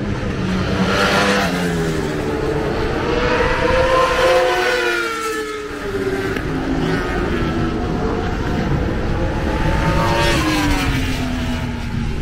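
Racing motorcycles passing at speed on a race circuit, their engines high-revving. The engine pitch rises and falls as each one goes by, with about three passes in a row.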